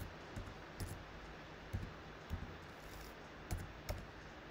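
A handful of separate computer keyboard keystrokes, faint clicks spaced out while a number is typed, over quiet room tone.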